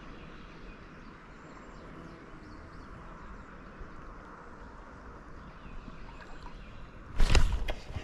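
Steady rush of shallow river water over a riffle, with a few faint bird calls. About seven seconds in comes a sudden loud burst of splashing and handling noise as the rod is swung up to set the hook on a striking fish.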